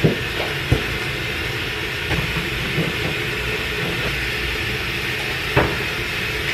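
A steady rushing noise, with a few sharp knocks and clatters as a dog's food bowl and a food container are handled: one right at the start, one under a second in and one near the end.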